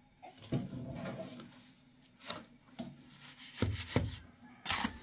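Intermittent scraping and rubbing against a hard surface, with a few short knocks.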